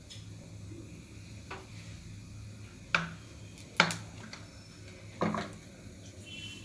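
Three sharp metallic knocks on an iron kadai (wok) as mustard oil goes into it, each ringing briefly, over a steady low hum.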